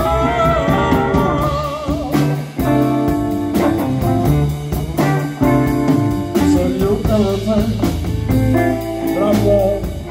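Live blues band playing: a male singer over electric guitar, bass guitar and a drum kit keeping a steady beat.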